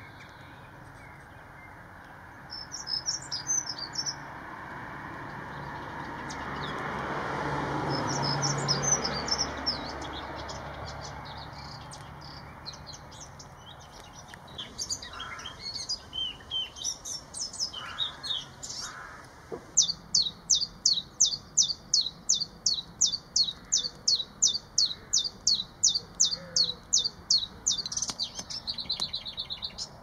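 Several small songbirds singing in short high phrases. In the last third, one bird repeats a sharp high note about three times a second for several seconds, ending in a brief trill. Around the middle, a faint rushing sound swells and fades under the song.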